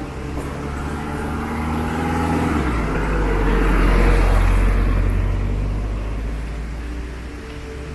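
A car drives past close by, its engine and tyres on the wet asphalt rising to a peak about halfway through and then fading away. Soft background music is heard under it at the start and end.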